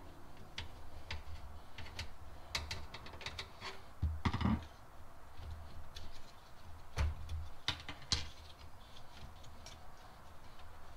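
Scattered light clicks and a few dull knocks, a couple of them heavier about four and seven seconds in, from hands working on a desktop computer case to unlatch and remove its graphics cards.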